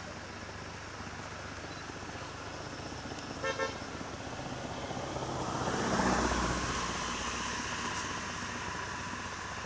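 A vehicle horn gives a short double toot, then a passing vehicle's engine and tyre noise swells and fades over a couple of seconds.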